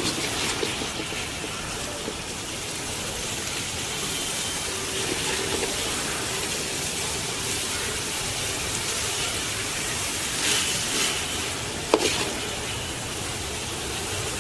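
Dry chicken masala sizzling in the pan as a steady hiss, with a single sharp knock about twelve seconds in.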